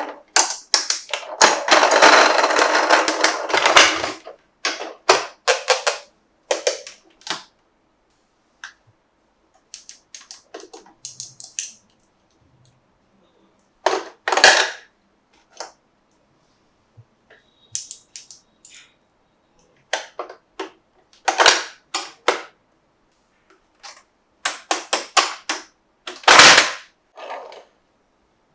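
Hard plastic toy pieces being handled: irregular sharp clicks and snaps, with a dense stretch of crackling in the first few seconds and scattered clusters of clicks after.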